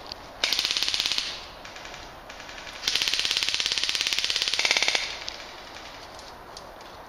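Airsoft gun firing two full-auto bursts, a short one of about a second and then a longer one of about two seconds, each a fast, even rattle of shots.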